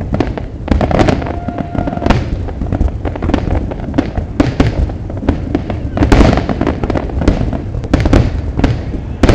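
Fireworks display going off: a dense, irregular run of bangs and crackles, busiest about six seconds in, with crowd voices underneath.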